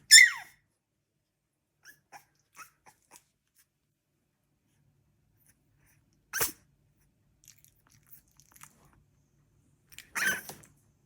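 Three-week-old Staffordshire bull terrier puppy vocalising. It opens with a loud high squeak that falls in pitch, followed by a few faint squeaks. Two louder short calls come about six and ten seconds in.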